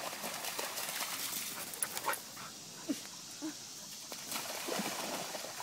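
A Siberian husky and a German shepherd splashing through shallow creek water and running out onto the bank, with dog panting and scattered splashes and footfalls.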